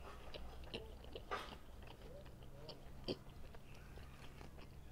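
Close-up chewing and biting of Adjarian khachapuri, soft bread with cheese and egg: moist mouth sounds with scattered small clicks, the sharpest about three seconds in, over a steady low hum.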